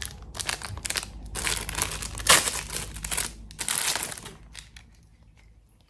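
Plastic packaging crinkling in irregular bursts as it is handled, loudest a little after two seconds in, then dying away after about four and a half seconds.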